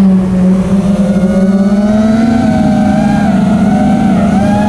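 FPV racing quadcopter's four iFlight Xing 2207 1800kv brushless motors and propellers whining on a 6s battery, heard from the quad's onboard camera. The pitch dips slightly just after the start, then climbs near the end as the throttle rises.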